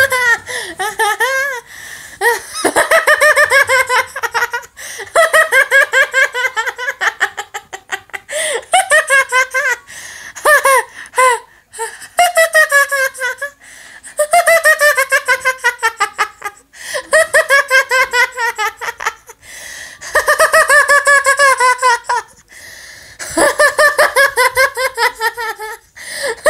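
A boy laughing hard and loud in repeated high-pitched bouts, each a fast run of ha-ha pulses falling in pitch, with short pauses between bouts.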